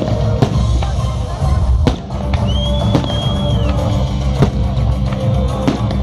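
Loud music with a heavy drum beat accompanying a fireworks display, with frequent sharp firework bangs. A high whistle lasts about a second midway through.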